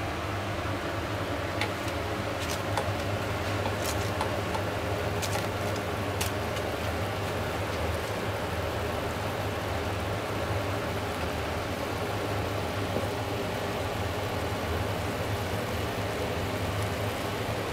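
Steady kitchen background noise: a low hum with an even hiss over it, and a few light clicks in the first six seconds.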